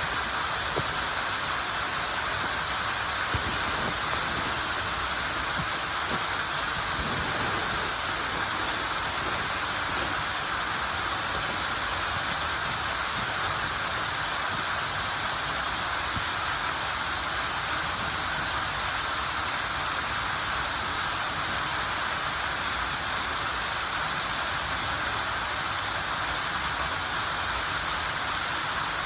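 Steady rushing of a mountain stream and waterfall, an even roar of water with no change throughout. A few faint knocks sound in the first several seconds.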